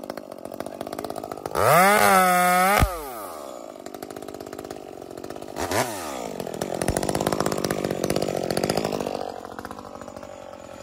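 Modified Echo 2511 top-handle two-stroke chainsaw revved hard to full throttle for about a second, then dropped back to idle. It blips up and back once more near the middle and runs louder for a couple of seconds before settling toward idle.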